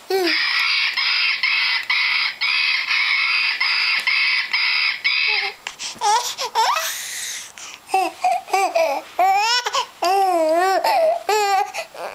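For about the first five seconds, a rhythmic rattling or buzzing runs at about two beats a second. Then an infant makes high, wavering coos and squeals, the pitch sliding up and down.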